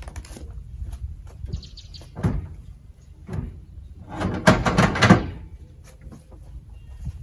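An RV refrigerator being pulled out of its cabinet: scattered knocks and bumps, then a loud scraping clatter lasting about a second, starting about four seconds in.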